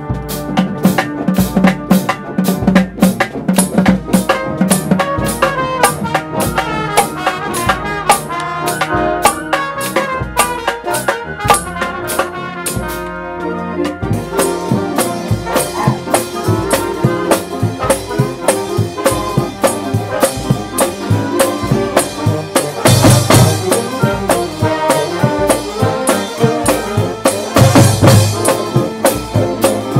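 Marching band playing: brass section (trumpets, trombones, sousaphones) over marching snare and bass drums keeping a steady beat. Two loud brass swells come in the second half.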